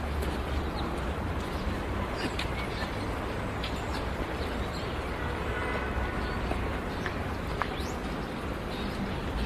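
Outdoor playground ambience: a steady low rumble and hiss, with a few faint short chirps and one brief rising chirp near the end.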